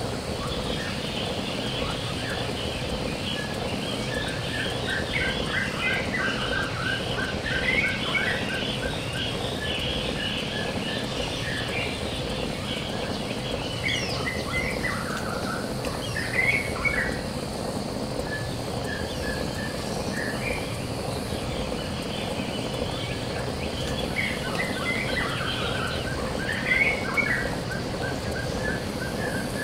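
Birds chirping and singing in short repeated phrases over a steady background noise.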